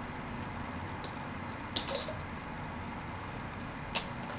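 A few faint, short clicks of small objects being handled, over a steady background hiss.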